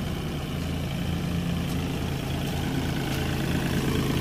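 Kubota L4018 tractor's diesel engine running steadily with an even low pulse while it drives a rotary tiller through wet paddy mud, growing slightly louder near the end.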